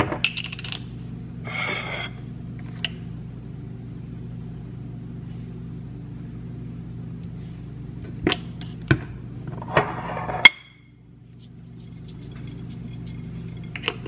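Food being topped on a kitchen counter: a few sharp clicks and taps of bottle caps and a plate, and short hissing squirts from a squeezed Sriracha bottle. Underneath is a steady low hum that stops suddenly about ten and a half seconds in.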